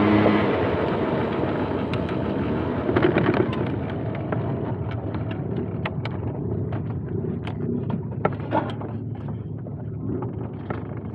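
A vehicle's running sound: a low steady hum that stops about half a second in, then a rushing rumble that slowly fades, with scattered light clicks.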